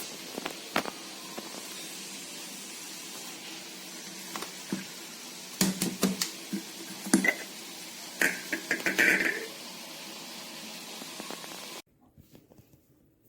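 Scattered knocks and light clinks from handling the food processor between runs of its motor, over a steady hiss. The knocks cluster in the middle, and the sound drops to near silence near the end.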